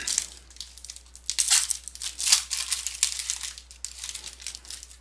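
Plastic trading-card pack wrapper being torn open and crinkled in the hands, in a series of crackling rips loudest about two seconds in.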